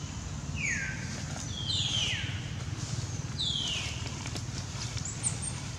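Infant long-tailed macaque crying: four short, high calls, each falling in pitch, in the first half or so, over a steady low rumble.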